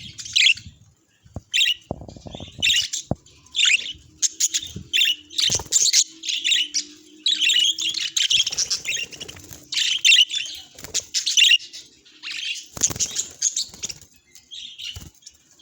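Pet budgerigars chirping and warbling in quick, irregular bursts, with a few short thumps mixed in.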